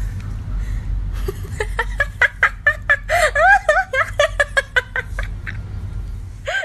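A person giggling in short, broken bursts, from about a second in until about four and a half seconds in.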